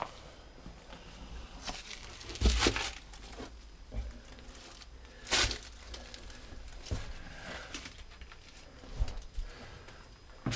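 Footsteps scuffing and crunching on gritty concrete inside a small concrete bunker, going down into its lower casemate, with the loudest crunching steps about two and a half and five and a half seconds in.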